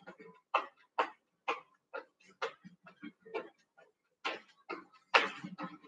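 Trainers tapping and scuffing on a gym floor as feet shuffle quickly forward and back close to the ground, about two steps a second. The steps pause briefly a little past halfway, then start again.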